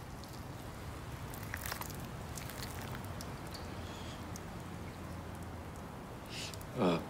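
Foil-lidded tray of dog food being peeled open, with a few light crackles and crinkles. Near the end comes a short breath, then a brief vocal sound that falls steeply in pitch, the loudest sound here.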